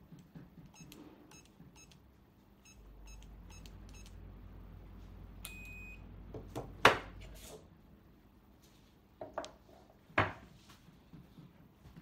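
Escape-room keypad panel beeping once per key press as a code is entered, about seven short high beeps in two runs, then a longer beep as the code is accepted. A loud sharp click follows as the lock opens, with a low hum under the middle part and a few more clicks later.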